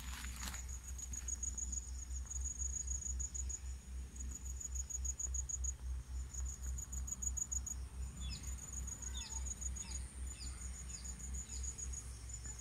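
Insect chirring in a steady, rapidly pulsed high trill, cricket-like, broken by a few short gaps, over a low fluttering rumble. From about eight seconds in, a bird gives a run of about six short notes, each falling in pitch.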